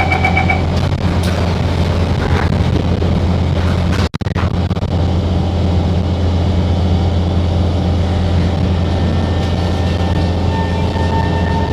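Inside a Singapore MRT train carriage: the door-closing beeps end in the first second, then the train's steady low hum and rumble carry on. The sound drops out briefly about four seconds in, and a steady whine comes in near the end.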